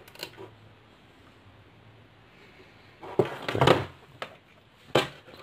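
Handling noises as a small metal-cased 12 V power supply and its cable are moved and set down on a wooden desk: a few faint clicks, then a cluster of knocks and rustles about three to four seconds in, and a sharp click near the end. The fan is not yet running.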